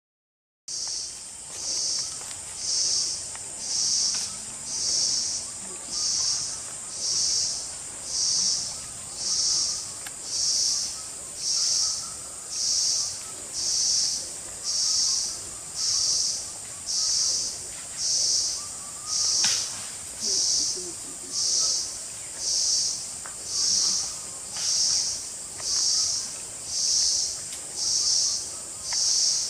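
Insect chorus: a steady high shrill with a second, lower note pulsing about once a second, starting just under a second in.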